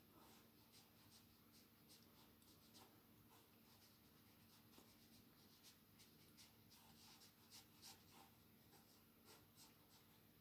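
Faint, irregular scratches of a small paintbrush dabbing watercolour onto paper, a few strokes a second, over a steady low hum.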